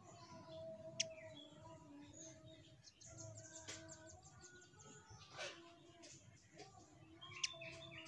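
Velvet-fronted nuthatch giving faint chirps, with two sharp, high call notes, one about a second in and one near the end.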